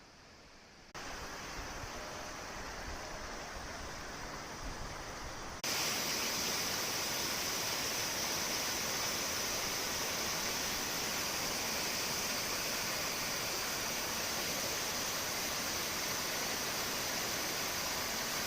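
Steady rush of flowing water, jumping abruptly louder about one second in and again near six seconds, with a strong hiss in the upper range.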